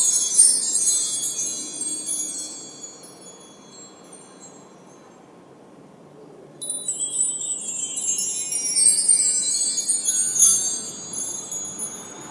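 Wind chimes jangling in gusts, many high ringing notes at once. A burst of ringing dies away in the first few seconds, then after a quiet spell a new burst starts suddenly about six and a half seconds in and fades near the end.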